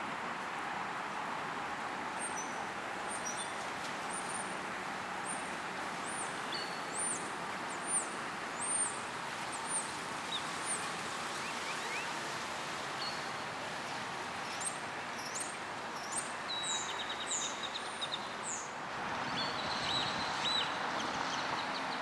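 Birds chirping: many short, high chirps repeated in runs over a steady background hiss.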